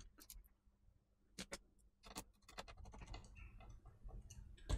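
Faint, scattered small clicks and taps of wireless antenna leads being pressed onto the laptop's Wi-Fi card connectors and cables being handled over the motherboard.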